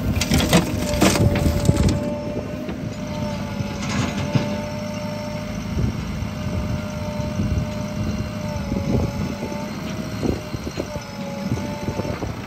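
A load of soil and stones from a JCB 3DX backhoe bucket crashes and clatters into a tractor trolley over the first couple of seconds, with another smaller spill about four seconds in. Under it the diesel engines of the backhoe and a Mahindra Yuvo tractor run steadily, with a steady whine over the engine noise.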